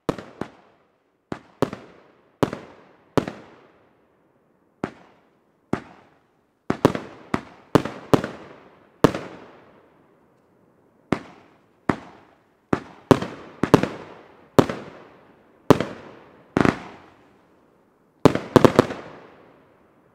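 Funke 'Blaublink Brokat' 16-shot 30 mm brocade firework cake firing: a steady run of sharp bangs, roughly one or two a second, each fading out quickly, with a rapid cluster of several bangs near the end.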